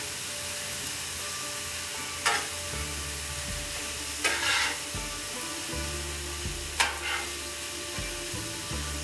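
Stir-fry noodles sizzling steadily on a hot Blackstone flat-top griddle while two metal spatulas toss and scrape them. Sharp spatula scrapes on the steel plate come about two, four and seven seconds in, the last one the loudest.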